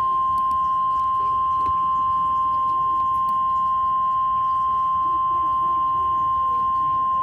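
NOAA Weather Radio warning alarm tone: a single loud, steady 1050-hertz tone held without a break, signalling that a warning, here a tornado warning, is about to be broadcast.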